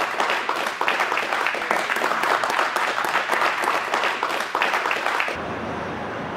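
A small crowd applauding, many hands clapping together. It cuts off abruptly about five seconds in, leaving a steady, even hiss.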